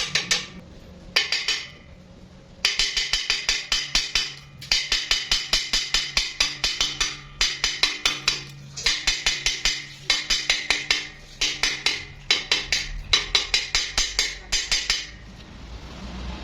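Rapid metallic tapping: a hammer striking steel in bursts of a second or two, about six ringing strikes a second, with short pauses between bursts.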